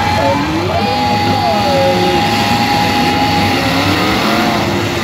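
Engines of many full-size demolition derby cars running and revving at once, loud and continuous.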